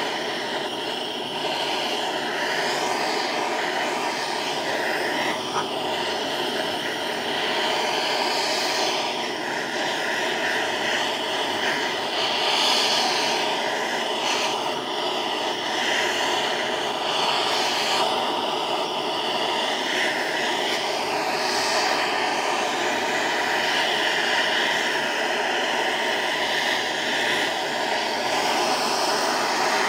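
Handheld gas torch burning with a steady rushing roar, heating an LS harmonic balancer so it expands enough to slide onto the crankshaft snout.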